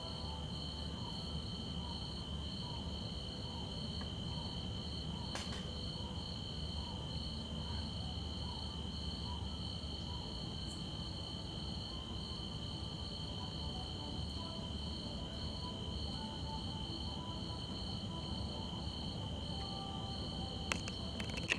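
Crickets chirping steadily at night in two high, unbroken trills, over a low rumble, with a few sharp clicks, two of them near the end.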